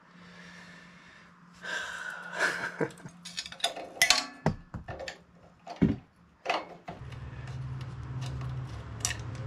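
Scattered metallic clicks, clinks and scrapes of a homemade valve spring compressor and valve parts against a Tecumseh OHV engine's cylinder head while a valve spring is compressed and its keepers fitted. A steady low hum comes in about seven seconds in.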